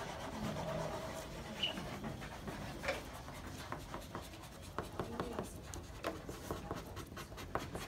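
A white chalk-like drawing stick scratching on brown paper board in many short, quick strokes, with faint voices in the background.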